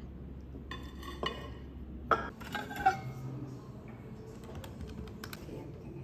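Ceramic bowls clinking against each other as they are lifted from and set back onto a stack, each knock ringing briefly; the two loudest knocks come about two and three seconds in.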